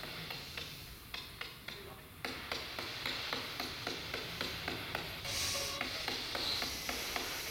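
Spirit box radio scanning through stations: hissing static broken by regular clicks, about four a second, with a short louder burst of hiss a little past halfway.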